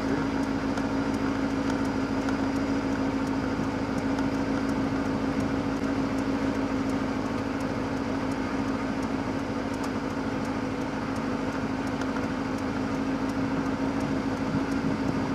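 Car engine and road noise heard from inside the cabin: a steady low hum that does not change.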